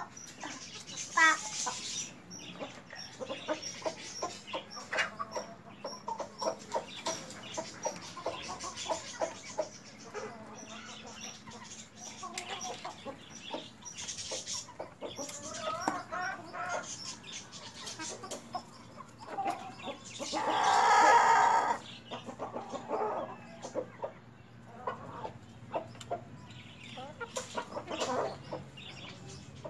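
A flock of desi chickens clucking and calling while feeding, with many short sharp taps of beaks pecking at food on plastic trays and a bowl. One loud, drawn-out call stands out about two-thirds of the way through.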